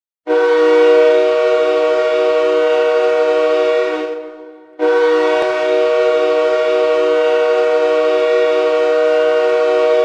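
Calgary Wranglers' arena goal horn sounding a chord of several steady tones in two long blasts: one of about four seconds, then after a short break a second that holds to the end. It signals a goal scored.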